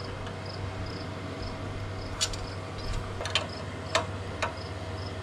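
Steel wrenches clinking a few times on a hydraulic elbow fitting as its collar nut is tightened. Behind them a cricket chirps steadily, about two chirps a second.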